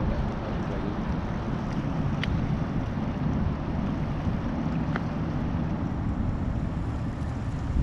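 Wind rumbling on the microphone over the wash of the sea against a rocky shore, with two faint ticks about two and five seconds in.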